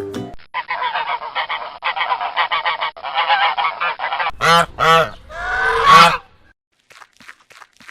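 Domestic geese honking: a run of rapid, overlapping honks for about four seconds, then three loud single honks, the last one drawn out longest. The honking stops about six seconds in.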